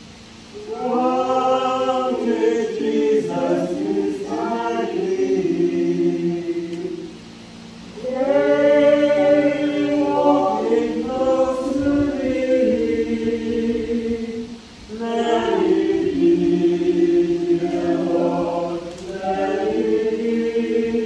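A small group of people singing a hymn together in held, sustained phrases, with short pauses for breath between lines.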